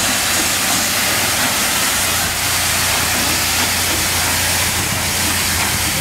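NG4 4-6-2T two-foot gauge steam tank locomotive moving slowly with a wagon, steam hissing steadily from around its cylinders with the drain cocks open.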